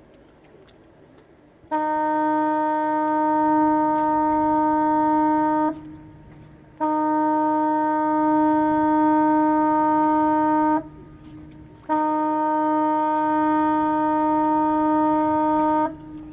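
Ship's horn sounding three long blasts of one steady pitch, each about four seconds, about a second apart.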